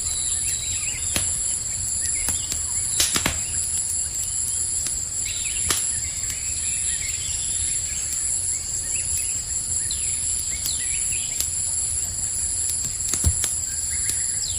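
Campfire crackling, with a few sharp pops (loudest about three seconds in and again near the end) over a low, steady rumble. Behind it, a steady high chirring of crickets and a few short bird chirps.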